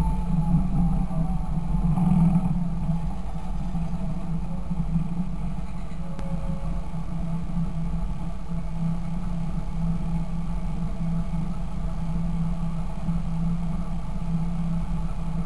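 Fendt Favorit 926 tractor's six-cylinder diesel engine running steadily, a little louder in the first few seconds and then even.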